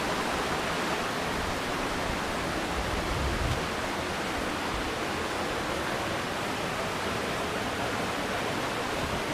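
A big waterfall, its falling water rushing steadily and evenly.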